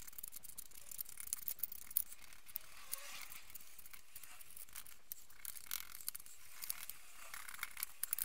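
Brushes scrubbing rusty steel drill parts in a metal tray, a scratchy swishing with many small clicks and taps of metal.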